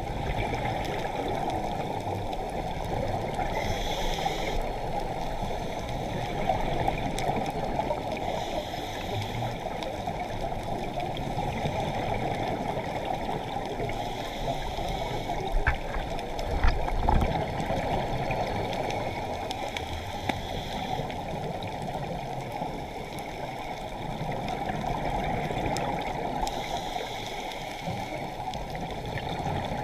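Muffled underwater rushing and gurgling picked up through a camera housing on a scuba dive, with the diver's regulator breaths and exhaled bubbles coming about every five or six seconds. A few short knocks about halfway through.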